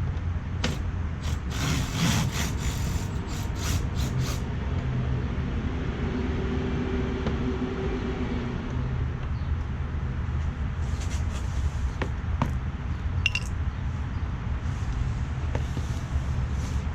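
Hand tools and screws clicking and clinking as fasteners are worked out of a car's plastic under tray. There is a cluster of sharp clicks in the first few seconds and more near the end, over a steady low rumble.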